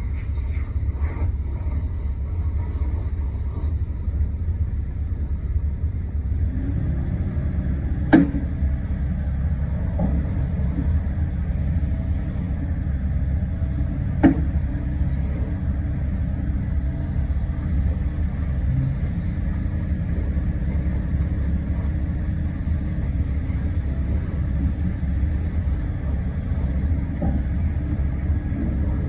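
Volvo ECR88D excavator's diesel engine running steadily with a low rumble, with two sharp knocks about eight and fourteen seconds in.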